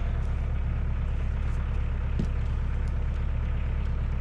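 Kioti DK40 compact tractor's diesel engine running steadily at low speed, with a single small click about two seconds in.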